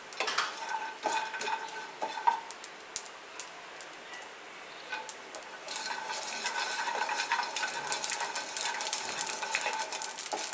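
Wooden spatula stirring and scraping pieces of dry coconut around a non-stick kadhai while they roast, with a crackling sizzle that gets denser from about halfway through.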